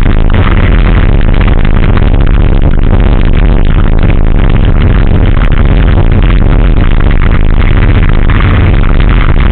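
Loud, overloaded mix of racing engines running and music playing, dense and steady throughout with heavy bass.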